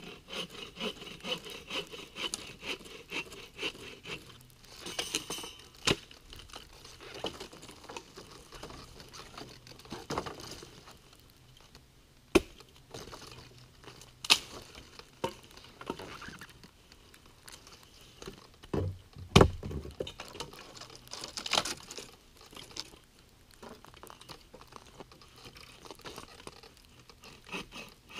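Hand saw cutting dry branch wood in several short spells of quick, even strokes, with pauses between them. Sharp knocks of wood on wood come in the gaps, the loudest with a dull thump about two-thirds of the way through.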